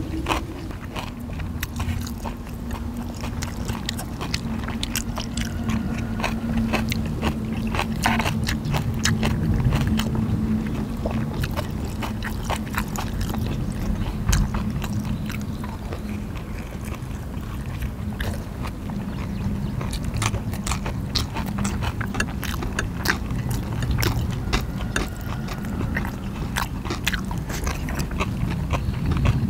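People chewing and biting into soft dumplings close to the microphone, with frequent short clicks of chopsticks on plates and the board, and a low steady hum underneath for much of the time.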